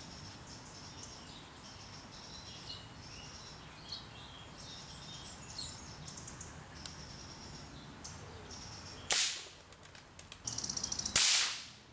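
Two moderated rifle shots about two seconds apart, fired toward the microphone from about 20–25 yards. The first, about nine seconds in, is from a .22LR, generally a subsonic round, and is quieter. The second, from a .17HMR, is clearly louder and sharper, with a longer fading tail.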